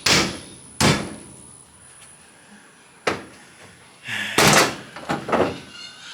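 GM G-body car door being shut several times to check how it sits on its hinges: single sharp knocks near the start, about a second in and about three seconds in, then a louder run of clunks and rattles between about four and five and a half seconds in.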